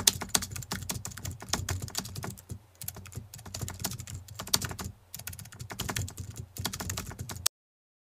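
Computer keyboard typing: rapid key clicks in quick runs, with brief pauses about two and a half and five seconds in. The typing cuts off suddenly shortly before the end.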